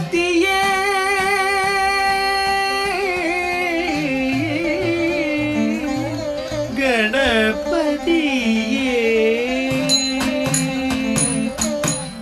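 Carnatic classical music: a singer holds one long note, then sings with sliding, ornamented pitch over a steady drone. About ten seconds in, sharp ringing percussion strokes begin.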